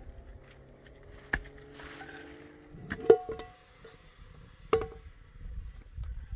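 Three sharp knocks, the later two ringing briefly like struck metal, over a faint steady tone that fades out about three seconds in.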